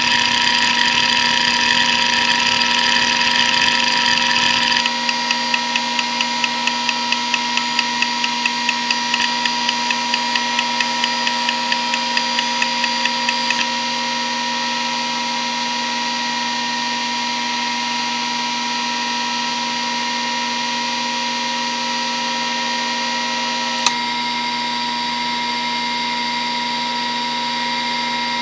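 Hitachi DK522C-10 5.25-inch SCSI hard drive (3600 rpm) under a seek benchmark: a dense buzz of rapid head seeks for about the first five seconds, then regular seek clicks about three or four a second until about fourteen seconds in. After that only the steady whine of the spinning platters remains, with one sharp click a little before the end.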